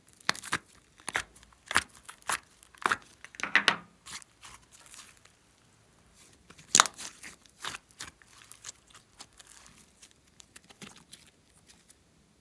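Sticky rainbow slime pressed by fingers and peeled out of a plastic tub, giving quick sticky crackles and pops. One louder pop comes about seven seconds in, then fainter crackles as the slime is laid down.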